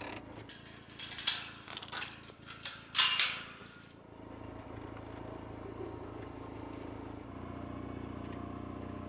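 Metal gate hardware, chain and latch, clinking and rattling in a quick jangle for about four seconds, over the steady idle of a side-by-side's engine, which goes on alone afterwards.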